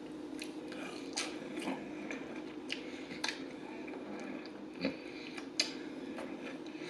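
Close-up eating sounds of barbecue ribs picked apart by hand: chewing and wet lip and mouth clicks, with finger licking partway through. A faint steady hum runs underneath.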